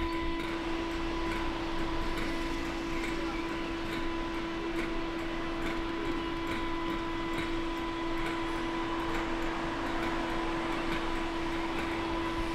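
Diesel locomotive idling at rest: a steady hum holding one constant pitch over a low rumble, with faint scattered ticks.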